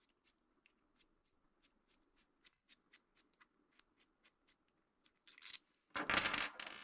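Faint, evenly spaced clicking, about four clicks a second, as a small screw-mounted plastic device is unscrewed. Near the end come louder bursts of rattling handling noise as its parts are taken apart.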